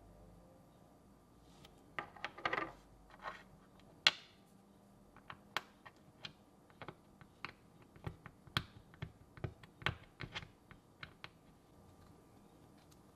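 Small metal pick tool clicking and scraping against a ball bearing and the aluminum housing of an RC crawler axle. A short scratchy rattle comes about two seconds in, then one sharp click, then a run of light, irregular clicks.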